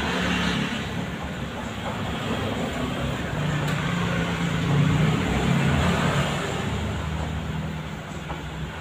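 Cordless electric hair clipper buzzing steadily as it cuts a boy's short hair, a little louder about four to six seconds in.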